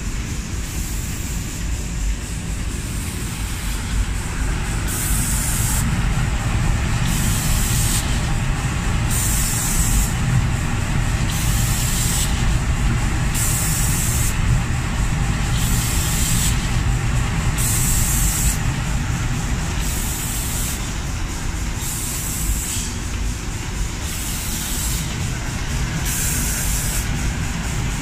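Automatic spray-painting machine's reciprocating spray guns hissing in short, regular bursts, about one every second and a half to two seconds, over a steady low machine rumble.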